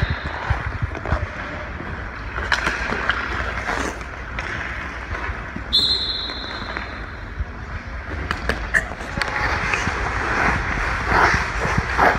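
Hockey skate blades scraping and carving on rink ice, with scattered sharp clacks of sticks and pucks.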